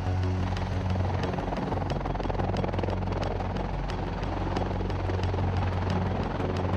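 V-22 Osprey tiltrotor in helicopter mode lifting off, its two proprotors beating in a fast, even thump over a steady rushing drone.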